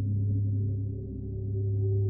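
Dark ambient background music: a low, gong-like drone that dips about a second in and swells again.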